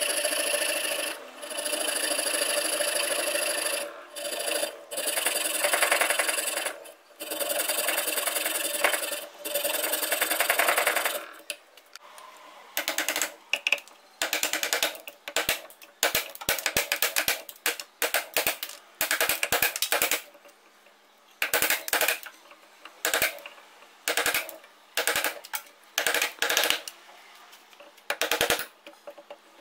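Abrasive rubbing and filing strokes on the axe. Long continuous strokes run for about the first eleven seconds, then shorter, choppier strokes with brief gaps between them.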